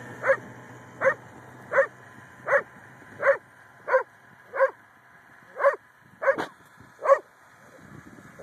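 A dog barking over and over, about one bark every three-quarters of a second, stopping about a second before the end. Under the first few barks, a faint snowmobile engine hum fades away as the machine drives off.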